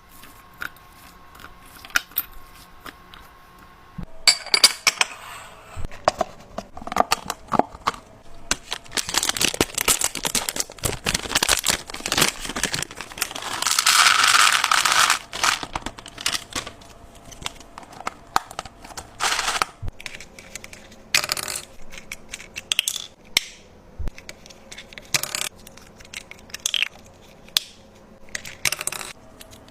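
Food containers and packaging handled: a run of separate clicks, knocks and clinks, with a longer stretch of crinkling, tearing plastic about halfway through.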